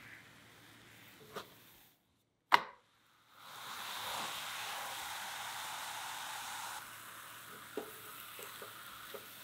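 A single sharp knock about two and a half seconds in, then a chocolate crepe sizzling in a nonstick frying pan after being turned: a steady hiss that drops to a quieter sizzle about two thirds of the way through, with a few small ticks and pops.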